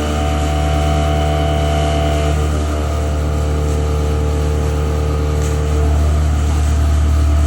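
CNC milling machine running: a steady motor hum with several whining tones. Some of the tones drop away about two seconds in, and the hum grows louder near the end.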